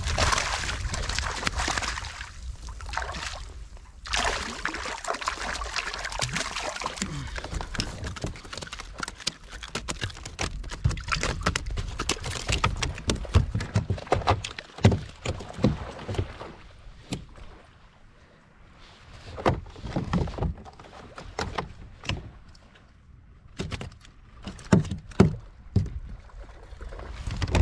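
Water splashing and sloshing at a kayak for roughly the first half, then a run of separate knocks and thumps on the kayak's hull, the loudest of them near the end.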